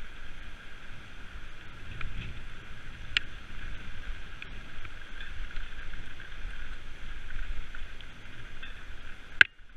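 Mountain bike rolling along a dirt track: steady tyre noise and wind buffeting the microphone, with a few light clicks and a sharp knock near the end.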